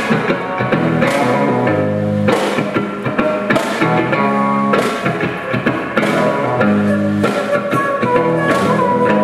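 Live band playing: guitar with a steady drum beat about once a second, and a flute carrying a held melody note near the end.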